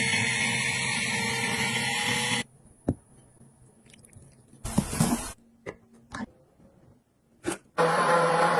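A small household gadget runs with a steady whirring noise and cuts off suddenly after about two seconds. A few sharp clicks and a short rustle of handling follow, and then it starts running again near the end.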